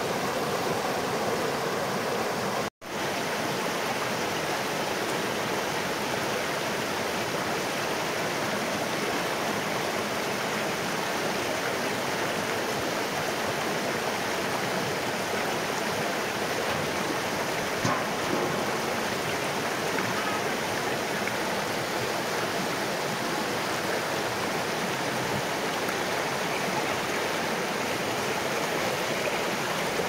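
Shallow mountain river rushing over a small rocky cascade: a steady, even rush of flowing water, cutting out for an instant about three seconds in.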